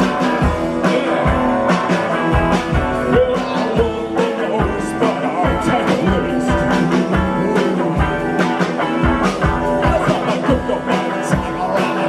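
Live rock band playing: electric guitar and a drum kit, with a singer's vocals over them.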